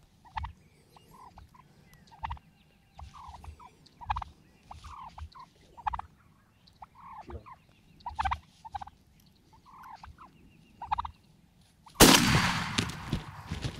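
Wild turkey gobblers calling in a run of short, repeated notes. About 12 seconds in, a loud burst of wing flapping close to the microphone.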